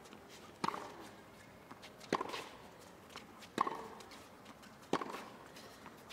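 Tennis ball struck by rackets in a rally: four sharp hits, about one every second and a half.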